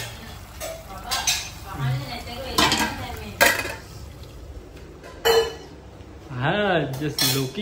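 Aluminium cooking pot and utensils clattering, several sharp metal clinks as the curry is stirred and a lid is put on the pot. Near the end comes a short wordless voice.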